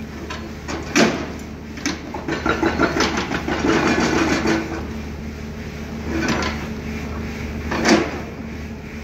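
Hydraulic excavator engine running steadily, with knocks and clattering as its bucket works the rock face and loose stone and dirt rattle down the slope. The sharpest knocks come about a second in and near the end, with a long stretch of clatter in between.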